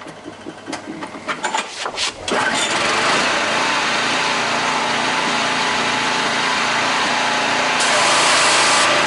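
A gas pressure washer's small engine being started: a few clicks and knocks, then the engine catches about two seconds in and runs steadily. A brighter hiss joins near the end.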